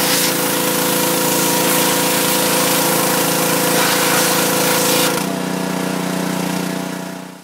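Pressure washer spraying a jet of water under a car: a steady hiss over the hum of the machine's motor and pump. About five seconds in, the spray stops and the machine runs on at a lower tone, then fades out near the end.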